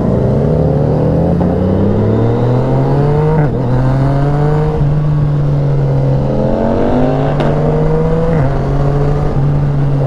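Motorcycle engine and exhaust under acceleration. The pitch climbs steadily and drops back at each gear change, several times over.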